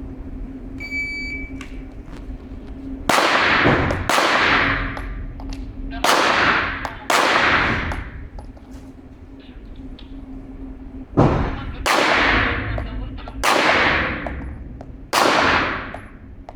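An electronic beep about a second long, then eight shots from a Glock 17 9mm pistol, each followed by a long echoing tail. The first six come in pairs about a second apart, and the last two are single shots.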